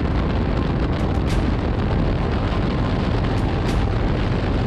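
Steady wind rush buffeting a helmet-mounted camera on a motorcycle cruising at road speed, heaviest in the low end, with the bike's running noise buried underneath.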